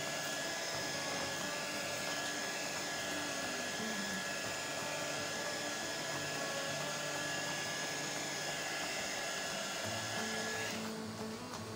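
Hot-air heat gun blowing steadily with a thin, constant whine as it dries a wet-applied sticker on an acrylic plate. It cuts off near the end as background music comes in.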